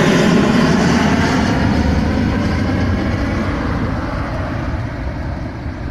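Jet engines of a Gol Boeing 737 climbing out after takeoff, a steady noise that fades as the airliner draws away, its higher tones dying first.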